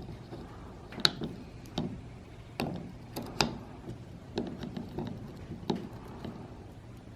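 Small plastic gears and housing of a taken-apart HVAC blend door actuator being handled, giving scattered light clicks and taps, about one every half second to a second. The gears are out because the actuator failed with worn, warped teeth and a plastic shaving jamming them.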